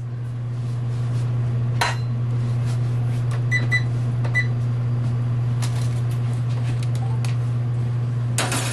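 Steady low hum of a running oven, with a single knock about two seconds in and three short electronic beeps around the middle.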